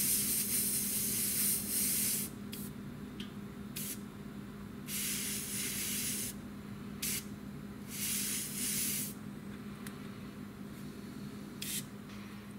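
Airbrush spraying gunship green paint in on-and-off bursts of hiss, some about a second long and others brief, over a steady low hum.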